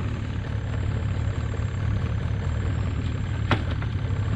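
Small boat engine idling with a steady low hum. A single sharp knock comes about three and a half seconds in.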